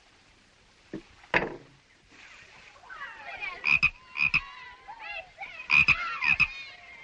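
Two sharp knocks about a second in, then animal calls from about three seconds on: quick, warbling calls that rise and fall in pitch, broken by sharp clicks, running on to the end.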